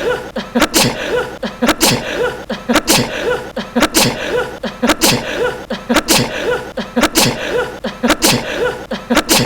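A man's short, light sneezes repeated about twice a second in a regular pattern, the same few sneezes looped over and over.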